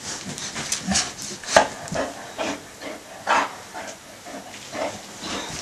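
Two dogs, one a basset hound, play-fighting: scuffling and rubbing against fabric mixed with short, irregular dog noises, loudest about one and a half and three and a half seconds in.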